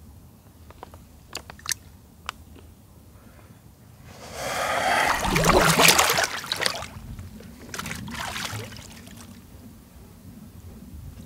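A few sharp drips, then a loud splash and slosh of water about four seconds in as a man sinks fully under the water of a plastic-lined pit bath. A smaller splash follows a few seconds later.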